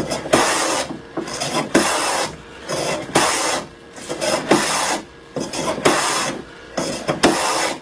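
Large wooden hand plane (a traditional Chinese jack plane) pushed along a piece of wood in repeated strokes, about one a second, each a rasping hiss of a shaving being cut.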